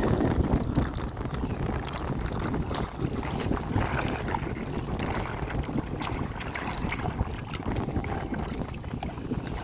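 Strong wind buffeting the microphone as a dense low rumble, with irregular splashes and knocks from a small boat on floodwater.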